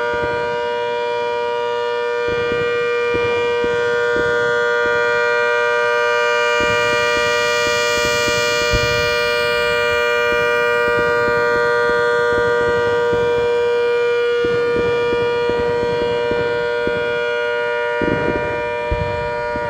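Electromechanical 'Hurricane' siren with a rotating horn, running at full speed. It holds a steady, loud, multi-tone wail, and its level swells a little as the horn turns.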